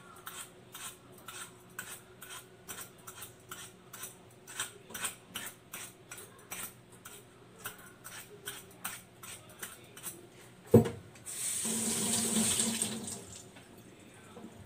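Knife peeling an apple by hand, short scraping strokes about two to three a second. About eleven seconds in comes a single sharp knock, the loudest sound, then a kitchen tap runs for about two seconds.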